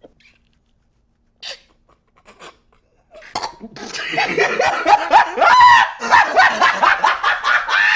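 About three seconds of near silence with a few faint clicks, then a dog barking and calling in quick, pitch-bending bursts, used as a comic sound effect.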